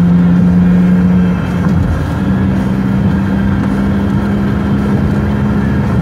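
Steady drone of a moving car heard from inside its cabin: engine and road hum. The hum's pitch wavers about one and a half seconds in, then settles a little higher.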